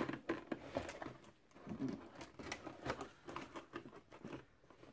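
Hands working at a cardboard kit box to get it open, a craft knife at its edge: scattered light scratches, taps and rustles of cardboard.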